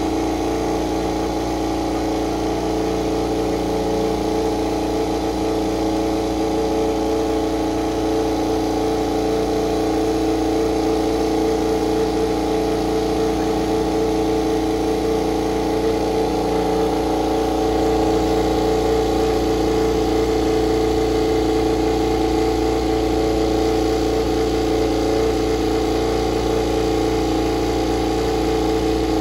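GasGas-liveried KTM RC16 MotoGP bike's V4 engine running steadily on its warm-up, held at a constant idle with no revving. It gets slightly louder a little past halfway.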